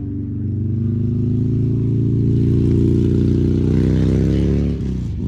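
A motor vehicle's engine running, rising slowly in pitch and loudness for about four seconds, then dropping off sharply near the end.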